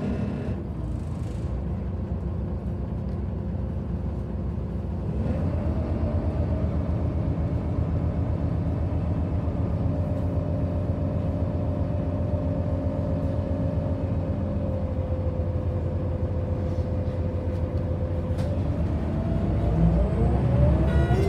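Scania L94UB bus's rear-mounted engine idling, heard from inside the cabin, with a steady low rumble and a whine that steps up in pitch about five seconds in and then holds. Near the end the engine note rises and grows louder as the bus pulls away.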